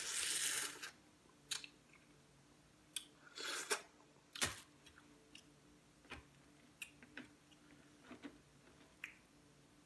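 Eating boiled crawfish: a noisy sucking slurp in the first second with a crawfish held at the mouth, then scattered cracks and clicks of crawfish shells being broken and peeled by hand, with some chewing.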